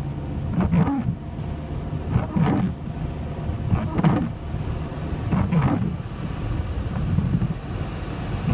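Car cabin noise while driving through a heavy hail and rain storm: a steady low rumble of tyres and rain on the car, with a regular swish about every one and a half seconds, like windscreen wipers sweeping the glass.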